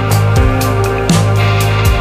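Background music with a steady beat: held notes over a low bass line, with regular percussive hits.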